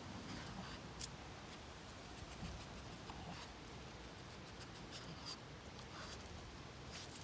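Faint scratchy rustling of shrub foliage as a Boston terrier noses and sniffs through the plants, with a few short soft clicks scattered through.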